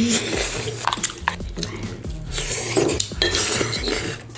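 Metal chopsticks and a fork clinking and scraping against a crayfish shell and a cup of noodles, in irregular short clicks and rustles.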